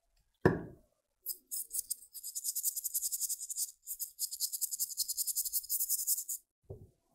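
Rapid scrubbing strokes on a laptop processor chip being cleaned, a high hissing rasp of many short strokes a second, with a short break partway. A knock about half a second in and another near the end.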